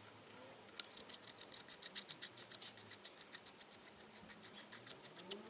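Rapid, evenly spaced metallic ticking, about eight clicks a second, starting about a second in and stopping shortly before the end.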